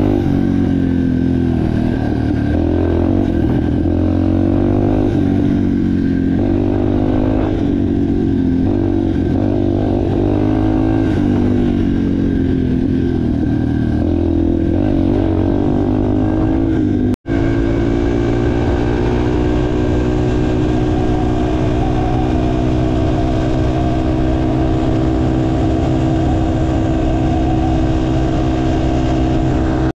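Yamaha TTR230's air-cooled single-cylinder four-stroke engine running and revving up and down every second or two, running well on a freshly cleaned carburetor. After a brief cut about 17 seconds in, it runs steadier with a slow climb in pitch.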